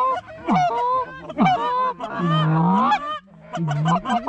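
Canada geese honking and clucking in quick succession, with one long low moaning call a little past two seconds in.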